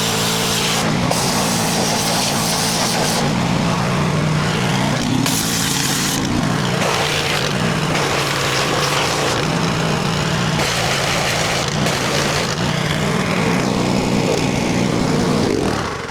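Murray 22-inch push mower's small engine running steadily. A spray of water hisses on and off over it as the mower is washed.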